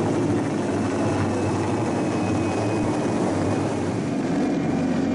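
Helicopter flying low overhead: a steady rotor and engine drone.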